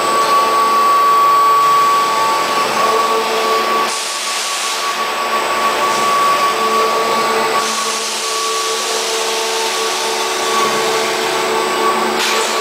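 Industrial wood-shaving baling machine running: a steady mechanical whine with several held tones. A higher hiss comes in about four seconds in, drops out, and returns for the rest of the run.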